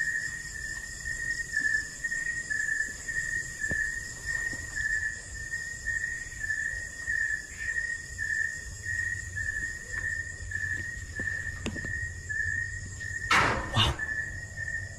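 Night insects calling: a steady high chirp pulsing about twice a second over a constant high buzz. A short burst of noise comes about a second and a half before the end.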